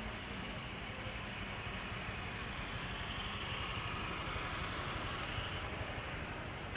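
Street traffic: motor vehicle engines running steadily, swelling for a second or two about three seconds in as a vehicle passes.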